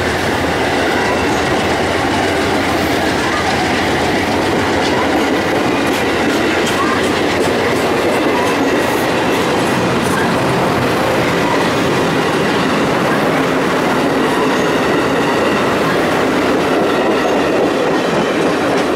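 Amtrak passenger train's stainless-steel cars rolling past close by: a steady, loud rush of wheels on rail, with some clickety-clack from the wheels over the rail joints.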